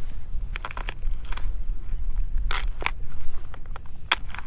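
A blue crab's shell cracking and crunching as it is split in half, in a string of short, sharp cracks, the loudest about two and a half seconds and four seconds in.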